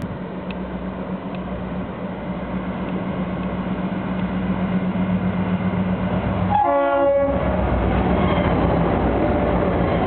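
A freight train led by EMD SD40-2 diesel locomotives approaches, its steady engine drone growing louder, with a short horn blast about seven seconds in as the lead unit nears.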